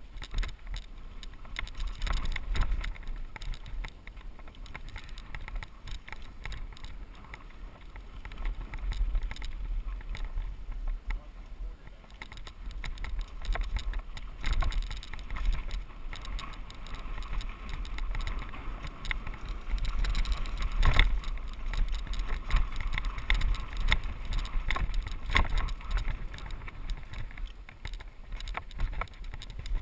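Mountain bike rolling over a packed-dirt trail: tyres on dirt under a steady low wind rumble on the microphone, with frequent short rattles and knocks as the bike runs over bumps.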